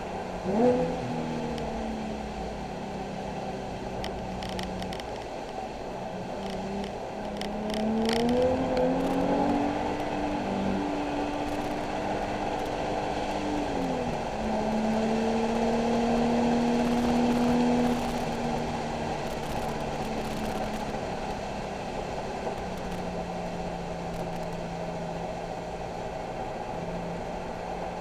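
Nissan 370Z's 3.7-litre V6 under track driving, with a quick rev spike about half a second in. It then climbs in pitch under acceleration and drops in steps at gear changes, over a steady hiss of tyre and road noise.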